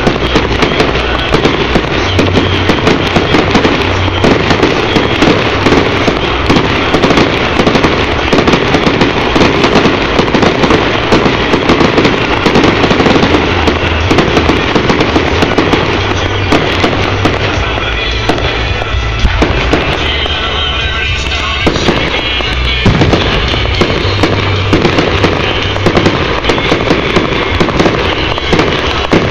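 Fireworks going off in a dense, continuous barrage of many rapid reports, thinning a little about two-thirds of the way through.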